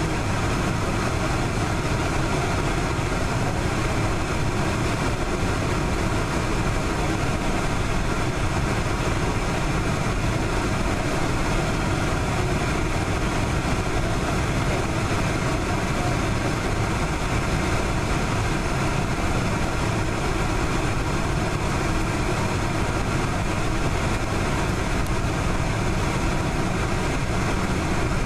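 Boeing 747-400 jet engines running steadily at taxi power, heard from inside the passenger cabin as a constant rumble with a faint whine.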